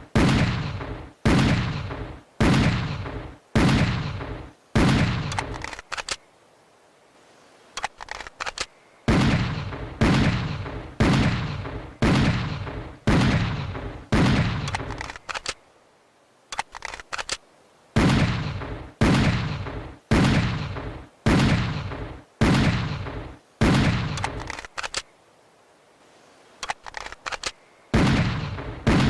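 Schofield .45 revolver firing in strings of six shots, roughly one shot a second, each with a long echoing tail: a full cylinder emptied each string. Between the strings come short pauses with a few quiet clicks.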